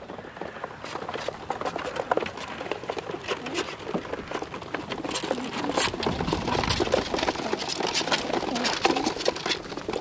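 Crated young racing pigeons shuffling, rustling and cooing in their transport boxes, a dense patter of small clicks with short scattered calls that grows louder about halfway through.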